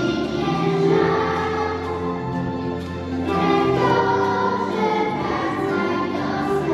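A group of young girls singing a song together in unison, held notes changing every second or so, with a low bass line beneath.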